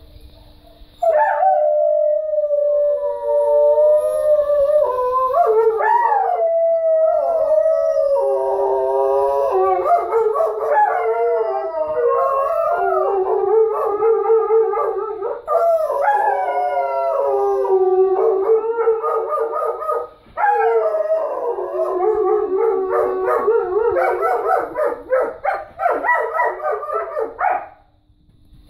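Two Czechoslovakian wolfdogs howling together, their long gliding howls overlapping at different pitches. The howling starts about a second in and pauses briefly about two-thirds of the way through. Near the end it breaks into short, choppy calls before stopping.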